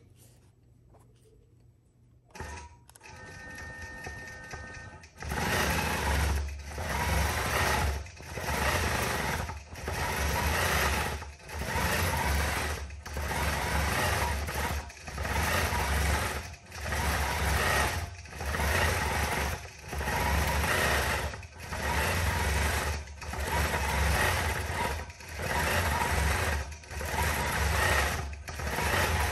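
Computer-guided longarm quilting machine (Statler Stitcher) stitching out a feather pattern. After a couple of seconds of near silence it starts quietly, then from about five seconds in runs at full stitching speed, dipping briefly in level about every second and a half to two seconds.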